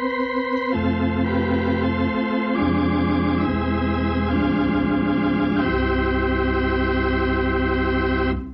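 Organ music bridge between radio-drama scenes: a run of held chords that change every second or two, then cut off near the end.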